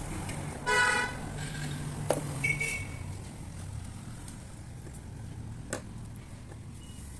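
A short, loud horn-like honk about a second in, with a fainter brief toot soon after and two sharp clicks over a low steady hum.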